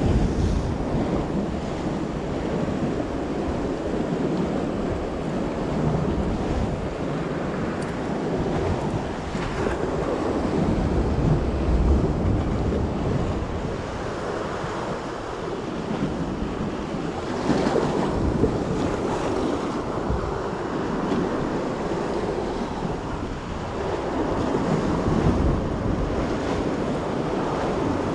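Sea waves washing and slapping close by, mixed with wind buffeting the microphone. The noise swells and eases unevenly.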